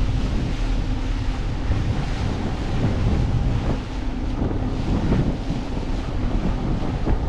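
Wind buffeting the microphone on a small motorboat under way, over water rushing and splashing against the hull, with the boat's motor running underneath.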